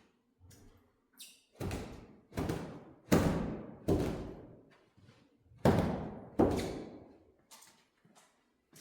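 Six loud, sharp thuds in three pairs, each trailing off in a reverberant echo, with a few fainter knocks between.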